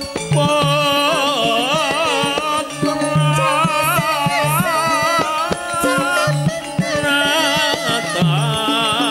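Campursari song: a woman sings with a strong, wavering vibrato over a small band with quick hand-drum strokes and a repeating bass line.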